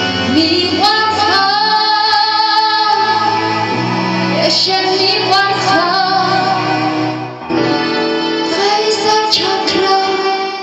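A song: a high voice sings a flowing melody over sustained accompaniment chords and low held notes.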